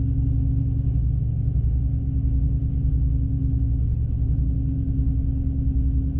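A car driving at a steady speed, heard from inside the cabin: a constant low engine and road rumble with a steady hum.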